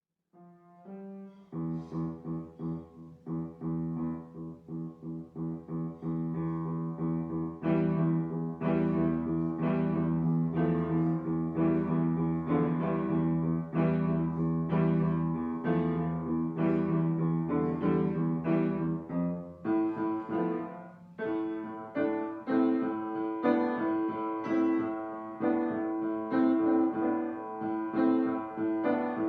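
Background piano music: a melody of steady repeated notes that gets louder about eight seconds in and changes to a lighter, higher accompaniment about twenty seconds in.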